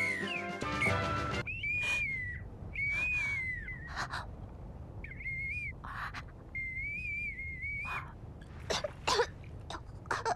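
A small whistle blown by a child in four warbling blasts, the last one the longest. Near the end, a few short breathy gasps and sputters follow.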